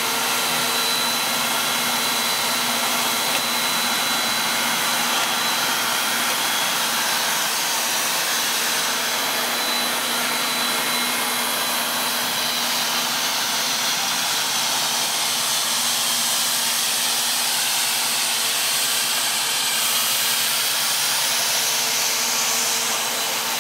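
Two-stage plastic recycling extrusion line running steadily: a constant machine whir and hiss with a steady low hum and a faint high whine.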